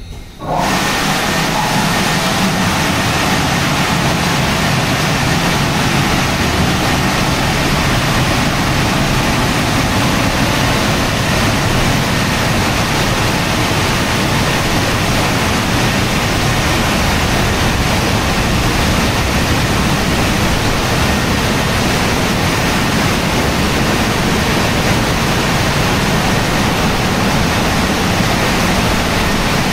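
Tammermatic T700 car wash drying blowers switching on abruptly about half a second in, then blowing air steadily and loudly over the car.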